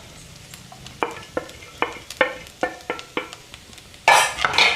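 A metal spoon knocking and scraping in a pan of frying fish: about eight sharp taps, each with a short ring. Near the end comes a loud burst of sizzling as the onions go into the hot oil.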